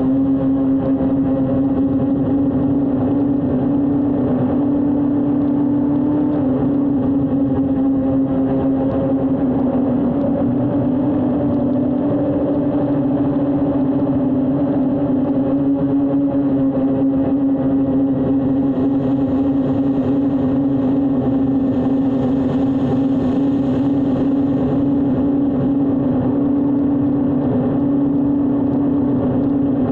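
A drone's electric motors and propellers in flight, heard from its own onboard camera: a steady, loud whine whose pitch wavers slightly as the drone banks and speeds up.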